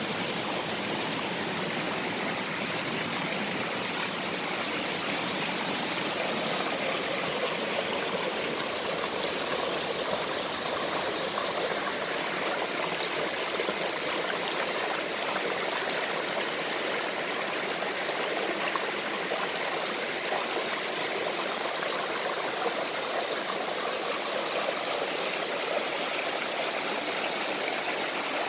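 Waterfall and stream water rushing and splashing in a steady, unbroken flow.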